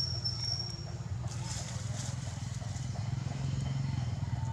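A steady low rumble with a fine rapid pulse, like a motor running, with a thin high whine that stops about a second in.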